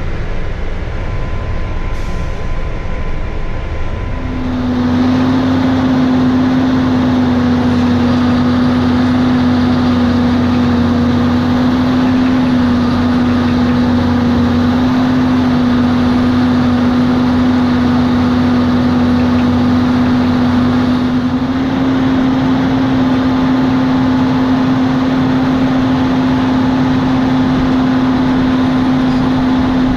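Farm machine engine running at a steady speed, a constant drone with a strong steady hum; the sound changes about four seconds in, then holds steady.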